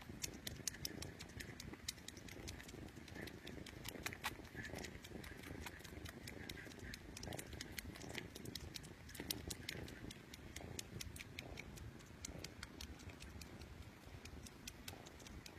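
Kitten purring steadily close to the microphone, with many light scattered clicks over it.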